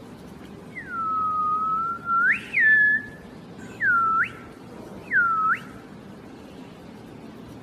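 Whistling in four gliding notes: a long low note that swoops up sharply at its end, a note falling from high to low, then two quick down-and-up swoops.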